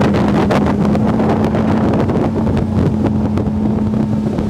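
Cobalt sport boat under way at speed: its engine drones steadily with a constant hum, while water rushes past the hull and wind buffets the microphone.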